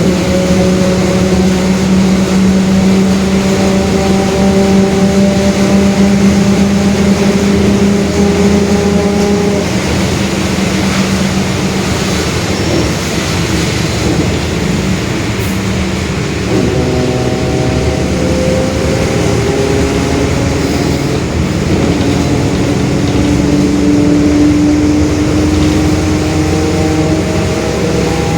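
Mercedes-Benz OF-1721 bus's six-cylinder diesel pulling under load inside the cabin. The engine note climbs slowly in pitch, breaks off about ten seconds in, and climbs again from about sixteen seconds in, as through gear changes while the bus gathers speed. The differential is growling under the engine sound.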